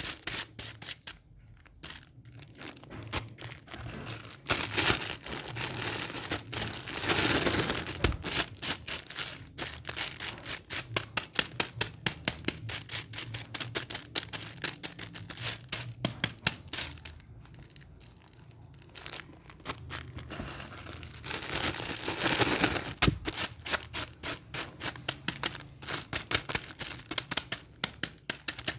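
Rapid, irregular clicking, a few clicks a second, broken by a few longer stretches of rustling hiss.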